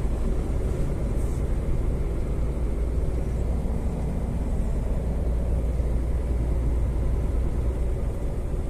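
Semi-truck on the move: a steady low rumble of engine and road noise.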